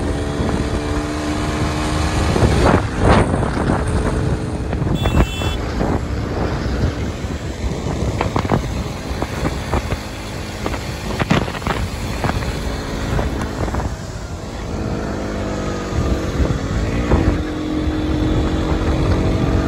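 A KTM RC sport motorcycle's single-cylinder engine running while riding, with wind rushing over the microphone. Its pitch dips and climbs again a few seconds before the end.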